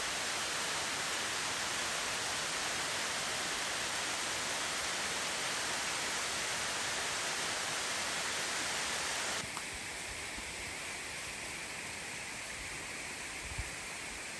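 Steady rushing of a waterfall, a constant even roar of falling water that drops slightly in level and grows duller about nine seconds in.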